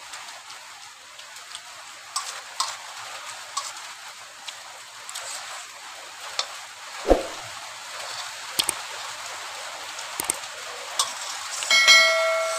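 A steel spoon clinking and scraping against a stainless steel plate of noodles, a few sharp clicks spread out, over a steady hiss of rain. Near the end, a short ringing electronic chime with clicks from a subscribe-button animation.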